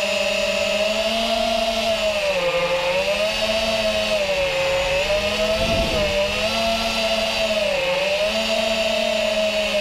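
Five-inch FPV quadcopter's DYS 2207 2300KV brushless motors spinning tri-blade propellers, a steady whine heard from the drone itself. Its pitch dips and climbs back about three times as the throttle changes, with a brief low rumble about halfway through.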